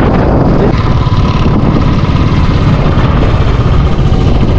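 Motorcycle engine running steadily on the move, a loud, even sound with no breaks.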